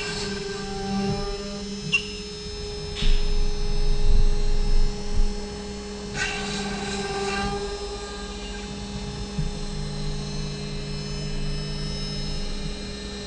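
CNC router spindle running with a steady whine as the machine lowers the bit over the boards to drill guide holes. A few clicks and a brief hiss come about six seconds in, and a lower drone joins for about three seconds near the end.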